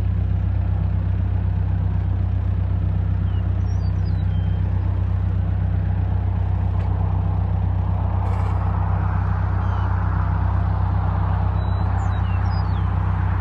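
Diesel engine of a 2008 New Holland B95B loader backhoe running steadily at constant speed, a deep even drone. About two-thirds of the way through a rushing hiss rises over it and holds.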